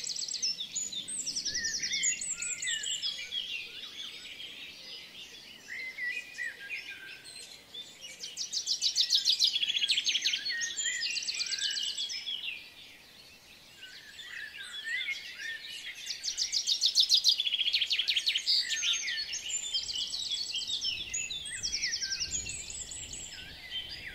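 Several birds chirping and singing, overlapping calls with fast rattling trills that grow louder about a third of the way in and again later.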